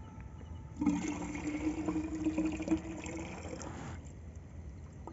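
Fresh date palm sap pouring from a clay collecting pot into a metal bowl. It starts about a second in and stops about a second before the end.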